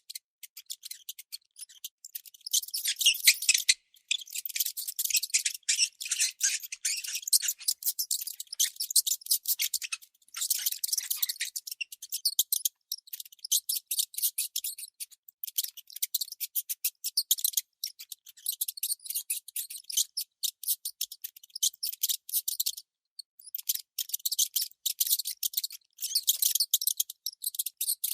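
A mouse gnawing: rapid, high-pitched, scratchy clicks in long runs, broken by short pauses about 4, 10, 12 and 23 seconds in.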